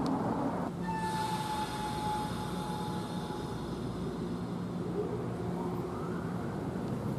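NJ Transit Arrow III electric multiple-unit train starting to pull out of the station, with a steady low hum. From about a second in a high, steady whining tone sounds for about three seconds, and a faint rising whine comes near the end as the train gathers speed.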